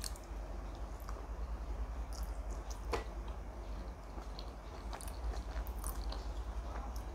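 Faint chewing of a bitten vegetable momo: soft mouth sounds with a few small clicks, over a steady low hum.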